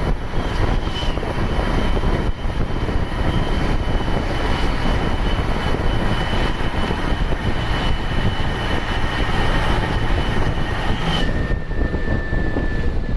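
Ashok Leyland turbo-intercooled diesel bus engine running under load, with a steady high turbocharger whistle over the engine noise. About eleven seconds in, the whistle steps down to a lower pitch and the highest hiss falls away.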